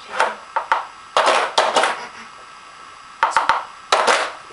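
Plastic Dog Twister treat puzzle knocking and clattering as a dog paws and noses at its sliding lids to get at the treats: a string of sharp knocks in two bunches, the first in the opening two seconds and the second near the end.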